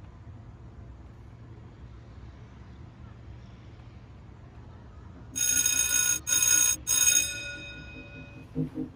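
Timer alarm ringing as the countdown runs out: a loud, bright electronic ring starting about five seconds in and lasting about two seconds, broken by two short gaps, then fading. Before it there is a steady low background rumble, and music begins near the end.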